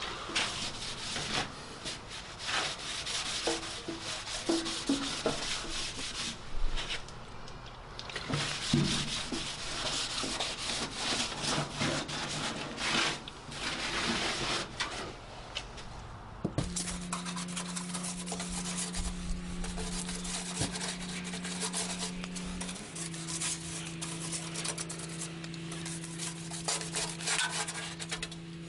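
Hand sanding on car bodywork: sandpaper rubbing the panel in irregular scratchy strokes with short pauses. About halfway through, a steady low hum with a higher tone above it joins in and shifts slightly in pitch later on.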